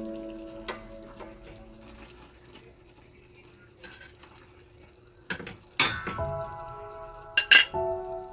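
Metal tongs clinking against the side of a stainless steel pot while turning fish in a simmering sauce: a few scattered sharp clinks, the loudest in a cluster late on.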